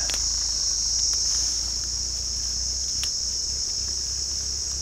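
Steady high-pitched insect chorus droning over an open field, with a low steady rumble underneath and a couple of faint ticks.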